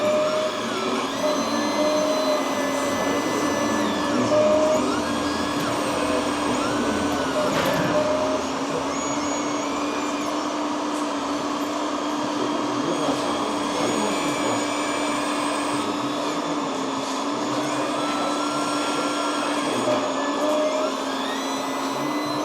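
Electric hydraulic pump of a radio-controlled model excavator running with a steady whine, its higher tones stepping up and down in pitch every few seconds as the load on the hydraulics changes.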